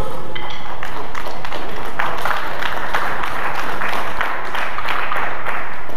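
Spectators clapping and applauding a bout's winner, many quick claps blending together for several seconds.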